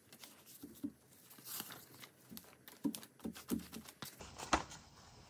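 Faint rustling, soft taps and handling noise of a sheet of copy paper moved and pressed down by gloved hands, with a sharper click about four and a half seconds in.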